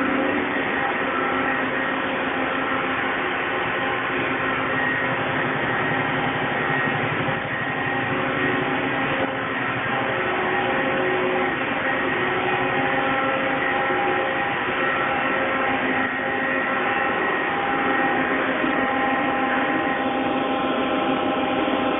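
Steady machine-shop noise from CNC lathes and other shop machinery running: a constant hum with several steady whining tones that come and go.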